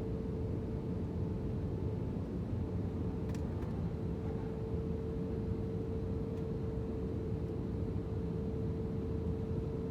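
Jet airliner cabin noise in flight: a steady low rumble of engines and rushing air with a constant hum-like tone over it. A faint click about three seconds in.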